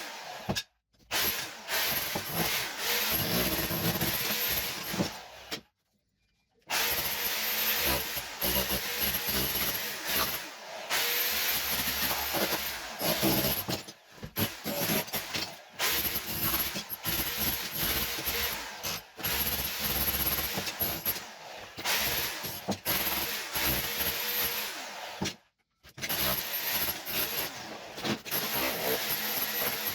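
Electric power tool working old ceramic wall tiles off, steady and loud, in several stretches that start and stop abruptly.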